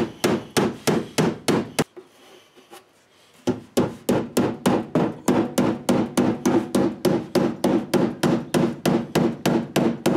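A hand hammer pounding the sheet-steel inner lip of a car's front fender at about four blows a second, flattening it for tyre clearance. A short run of blows is followed by a pause of about a second and a half, then steady hammering resumes.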